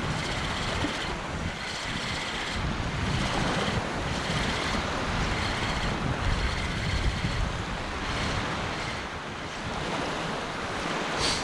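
Wind rumbling on the microphone over small sea waves lapping, an even noise with no distinct events.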